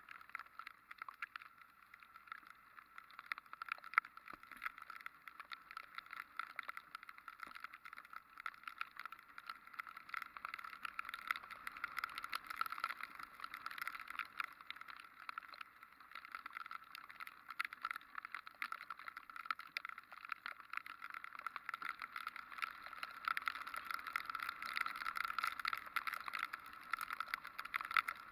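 Dense crackle of raindrops hitting a motorcycle-mounted camera, over a steady hiss of wind and wet road from the ride.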